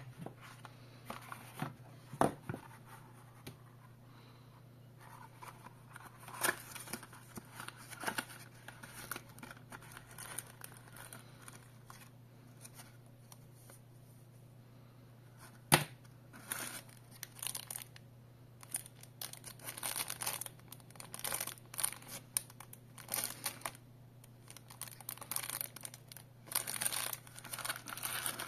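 Unboxing handling noise: cardboard packaging and a plastic wrapper being rustled and crinkled, with irregular rustles that grow busier in the second half. A couple of sharp knocks stand out, one at the start and one past the halfway point, over a steady low hum.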